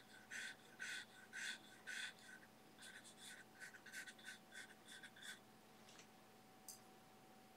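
A natural hog-bristle filbert brush scrubbing oil paint onto a smooth gesso-primed aluminum panel. It makes faint, scratchy strokes, about two a second at first and then quicker and shorter, and they stop about five seconds in.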